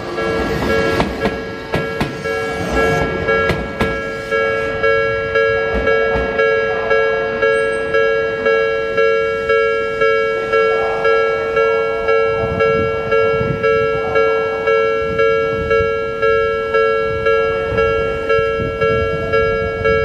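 Japanese level-crossing warning bell ringing in an even, rapid ding-ding, about three strikes every two seconds. Under it for the first few seconds an electric commuter train rolls past with wheel rumble and rail clatter that fades away.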